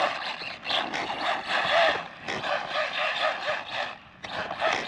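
Whine of the Arrma Mojave Grom BLX RC truck's brushless motor and drivetrain as it is driven hard, the pitch rising and falling with bursts of throttle. It drops away briefly about four seconds in, then picks up again.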